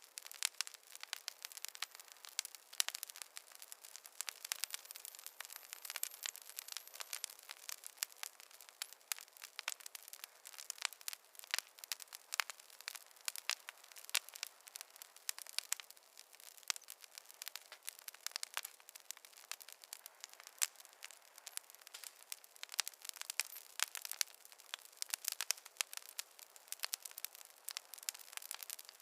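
Fireplace fire crackling: a dense, steady stream of sharp pops and snaps of varying loudness over a soft hiss, with no low rumble.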